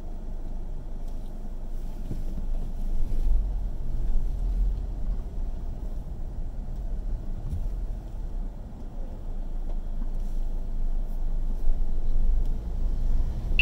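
Low, steady rumble of a car's engine and tyres, heard from inside the cabin as it creeps forward in slow traffic, swelling slightly a few seconds in.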